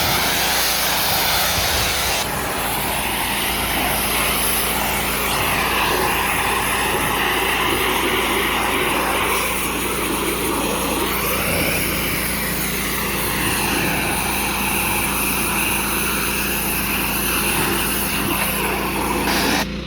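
Kohler-engined Easy Kleen 4000 psi hot-water gas pressure washer running with its trigger held, the high-pressure spray hissing steadily against a surface over the engine's constant hum. The spray cuts off sharply near the end while the engine keeps running.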